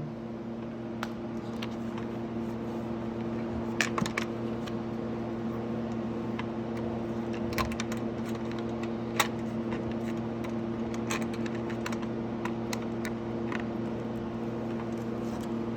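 Scattered light clicks and taps of tools and bolts being handled while plastic side fairings are fitted to a dirt bike, over a steady hum.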